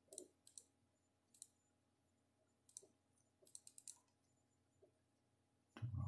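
Faint computer mouse clicks, some single and some in quick runs of several, with a short low thud near the end.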